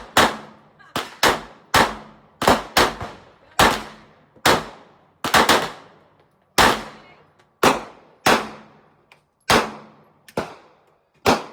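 Firearm shooting: about twenty gunshots in quick, irregular succession, each sharp crack followed by a decaying echo.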